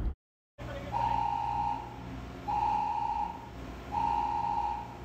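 An electronic warning beeper sounding three long, evenly spaced beeps, each just under a second long and about a second and a half apart, over a steady low machinery hum.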